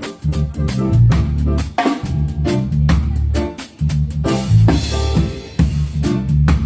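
Reggae one-drop groove on a drum kit, with snare rimshots and kick drum, over a heavy reggae bass line. A hissy wash in the high end comes in about four seconds in and fades by five and a half.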